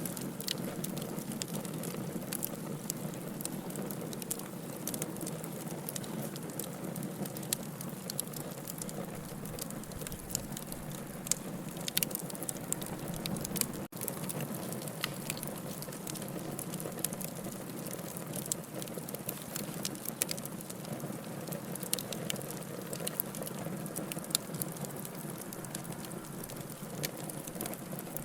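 Campfire burning, with a steady crackle and frequent sharp pops scattered throughout. The sound drops out for a moment about halfway through.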